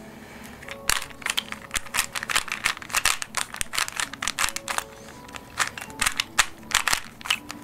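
Rubik's cube being turned quickly during a solve, its plastic layers clicking and rattling in quick irregular runs of several clicks a second.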